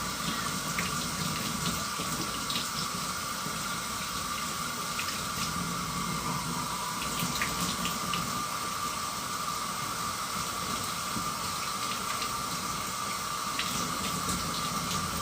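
Tap water running steadily into a sink, with a few light splashes, as shampoo suds are rinsed off a kitten.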